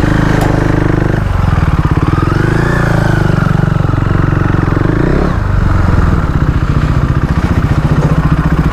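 KTM Duke 390's single-cylinder engine running while the bike is ridden, its revs dropping and rising about a second in and again around five seconds.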